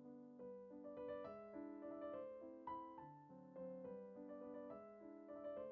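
Quiet background piano music, a gentle melody of soft notes.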